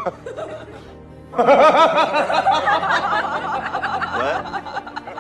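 Background music with a burst of high-pitched, rapidly repeating laughter starting about a second and a half in, cut off abruptly at the end.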